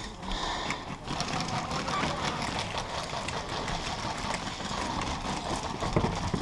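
Airsoft guns firing, a steady mechanical rattle of rapid clicks from electric rifles.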